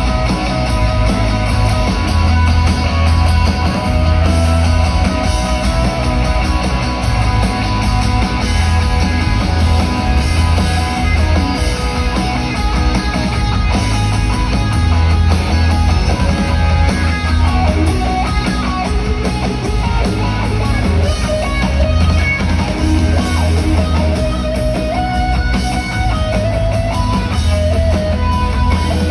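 Live rock band playing loud through a concert PA, with electric guitars, bass and drums, heard from the audience with a heavy, booming low end.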